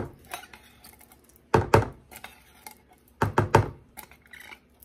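Mini spatula scraping and knocking inside an emptied tin can of tomato soup, in two quick clusters of clattering taps with a few light scrapes between.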